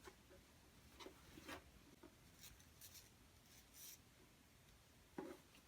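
Faint rustling and soft scraping of paper and packaging being handled, in a few short strokes spread through an otherwise near-silent room.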